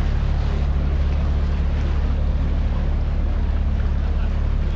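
Open canal tour boat's motor running steadily, a deep even hum, with water wash and wind on the microphone.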